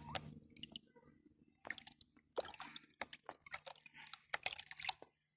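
Water sloshing in a plastic basin as a hand stirs liquid fertilizer into it, with small irregular splashes and drips that stop just before the end.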